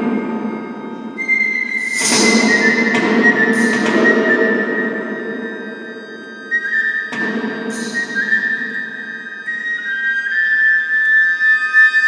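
Live contemporary chamber music: long, high, held tones that shift in pitch step by step over a low rumbling layer, cut by two sharp struck percussion attacks that ring out, about two and seven seconds in.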